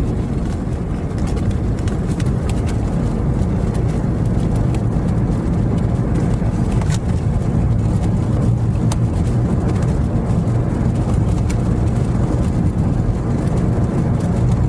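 Steady low rumble of a car's engine and tyres heard from inside the cabin while driving, with a few light clicks scattered through it.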